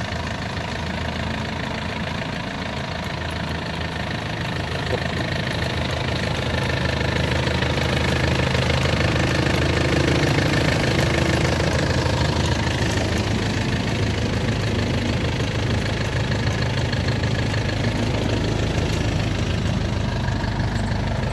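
Ruilong New World 88 combine harvester's diesel engine running steadily, growing somewhat louder about a quarter of the way in.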